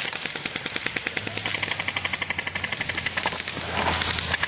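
Airsoft electric gun firing full-auto: a long, rapid, evenly spaced rattle of shots. Rustling near the end.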